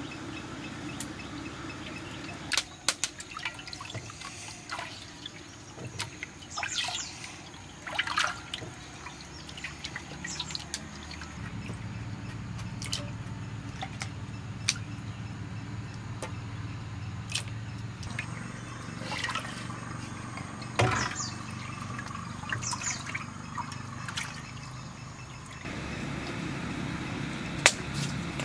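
Water splashing and dripping in an earthenware bowl as potatoes are washed by hand, in irregular splashes and drips over a steady low background hum.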